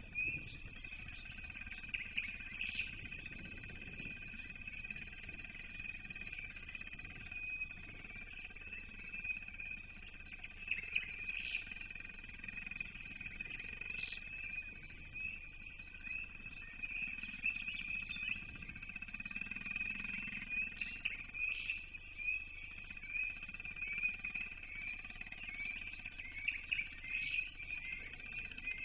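Steady high-pitched insect chorus with short chirping calls scattered over it throughout.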